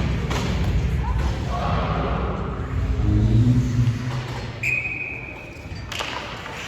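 Game noise in a large hall: indistinct voices and thuds, with one steady whistle blast of over a second past the middle and a sharp knock just after it.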